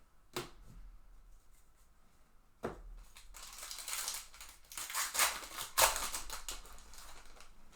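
Foil wrapper of a baseball card pack being torn open and crinkled, a crackly rustle lasting a few seconds. Two sharp clicks come before it.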